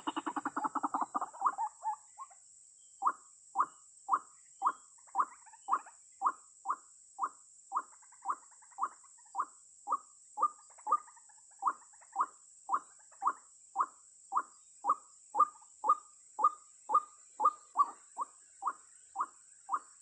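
White-breasted waterhen calling: a fast run of harsh croaking notes that stops about two seconds in, then, after a short pause, single short notes repeated evenly about twice a second.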